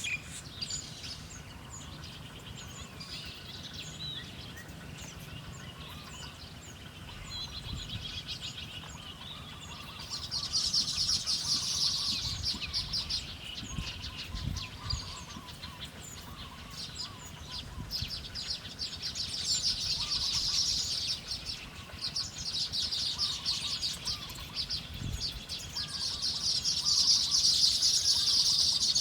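Birds chirping: rapid, high chatter that comes in bursts of a few seconds, swelling and fading several times, with fainter, lower short calls between.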